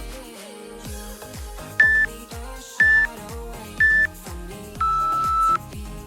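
Workout interval timer beeping over background music with a steady beat: three short high beeps a second apart, then one longer, lower beep, the countdown that marks the end of an exercise interval.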